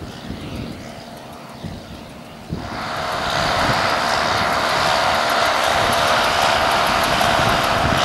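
A John Deere 6110 diesel tractor engine running under load as it pulls a working square baler through straw, the engine and baler mechanism blending into a steady drone. It gets suddenly much louder and brighter about two and a half seconds in.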